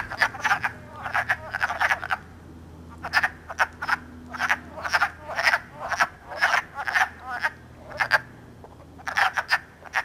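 A chorus of wood frogs calling in a breeding pond. Short calls come in quick overlapping clusters, with a couple of brief lulls.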